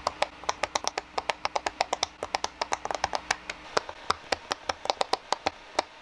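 Silicone push-pop fidget toy being popped with the fingertips: a quick, uneven run of small sharp pops, several a second.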